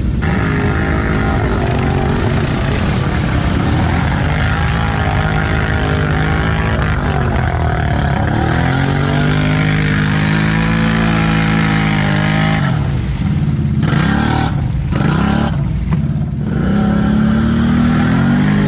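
ATV engine revving hard, its pitch climbing and falling with the throttle, with a few quick let-offs and a fresh climb near the end.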